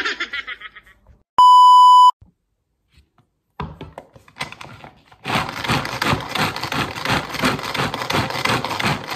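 A single loud, steady beep lasting under a second, then a hand-pulled string food chopper worked over and over: from about halfway through, its spinning blades rattle and whirr through the vegetables in quick repeated strokes.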